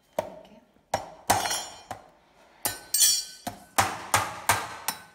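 Repeated sharp knocks of blows struck on a steamed mud crab claw on a plastic cutting board to crack its hard shell. A few spaced strikes come first, then a faster run of about three a second in the second half.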